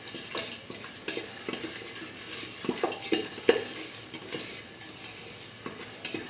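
Whole spices and cashews sizzling in hot oil in a stainless steel pan while a spatula stirs them, scraping and clicking against the metal in irregular strokes.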